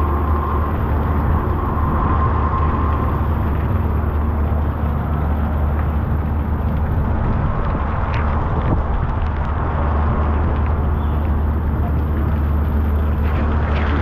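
Heavy rain pouring onto a city street, a dense steady hiss with a constant low rumble underneath.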